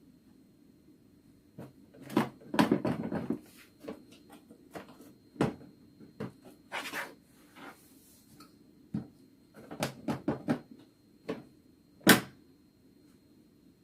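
Irregular knocks, clicks and short clattering of hard objects being handled, busiest about two to three seconds in, with a sharp knock near the end.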